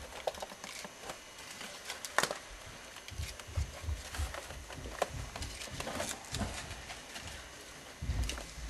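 Paper coffee filters and a drip coffee maker's filter basket being handled: scattered small clicks and knocks, with a few low thumps.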